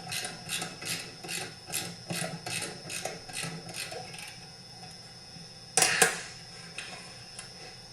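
A ratchet wrench clicking in a steady rhythm of about three clicks a second while tightening the clutch on a McCulloch CP 125 chainsaw. The clicking stops about four seconds in, and a loud sharp clack of metal follows about six seconds in.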